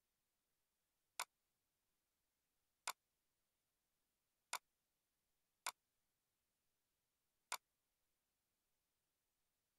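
Five sharp, single computer mouse clicks at irregular intervals, about a second in, near three seconds, twice close together around four and a half to six seconds, and once more near seven and a half seconds, over near silence.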